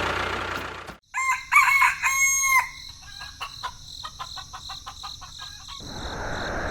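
Rooster crowing cock-a-doodle-doo, a long held final note, about a second in. A run of quick ticks follows, about five a second, and near the end a rising hiss.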